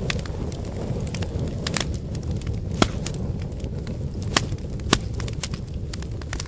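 Wood fire burning, a steady low rumble of flames with irregular sharp crackles and pops of the burning firewood, the loudest pops about three, four and a half and five seconds in.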